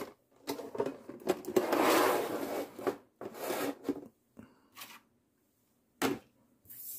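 A metal tin lunch box being handled: paper inserts rustling as they go into it, then a series of short knocks and clicks from the tin and its hinged metal lid as it is moved across a table, the sharpest knock about six seconds in.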